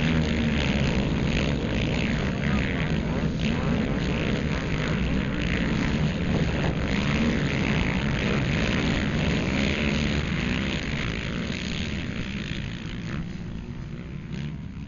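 Engines of a pack of racing quad bikes running hard on a dirt track, loud and steady, fading away over the last few seconds.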